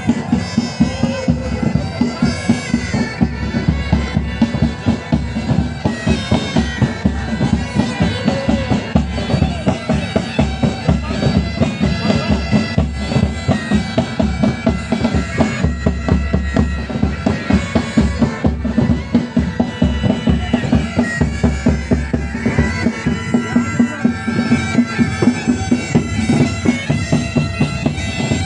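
Pipe band music: bagpipes playing a tune over their steady drones, with a regular marching drum beat.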